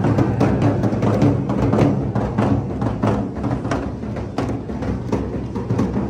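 Large double-headed barrel drums beaten with sticks in a fast, steady rhythm, with deep booming strokes.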